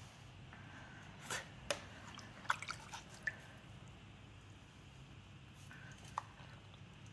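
Low steady hum of a pottery wheel spinning a wet terra cotta bowl, with a handful of short wet clicks and squelches of slip-covered hands on the clay, bunched between one and three seconds in and once more near six seconds.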